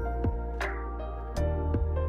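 Soft, gentle background music with a steady beat and a deep bass line.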